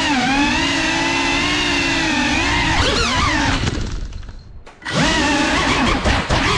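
Brushless motors and propellers of a GEPRC FPV drone whining steadily in flight, the pitch wavering with the throttle. A little past halfway the whine drops away sharply for about a second, then comes back with a few short clicks and knocks.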